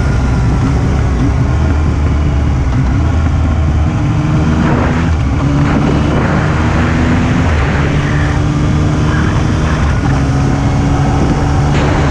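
Yamaha XSR900 three-cylinder motorcycle engine running under way, its note stepping up and down with the throttle, with short bursts of rushing noise. On closing the throttle it makes the abnormal 'fooon' sound that the owner is trying to show.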